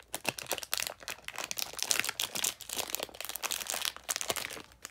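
A thin clear plastic bag crinkling and rustling as hands pull a speed cube out of it: a dense, uneven run of small crackles.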